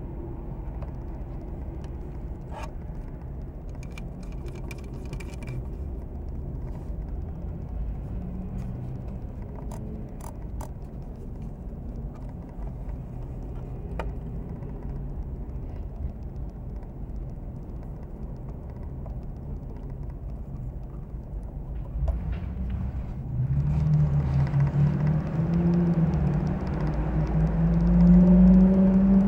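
Steady low rumble with a few faint clicks, then from about 23 seconds in a pitched engine drone that wavers upward and swells louder, as from a motor vehicle.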